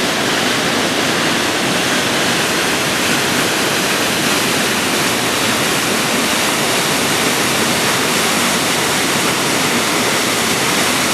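Waterfall crashing, a loud steady rush of falling water with no breaks.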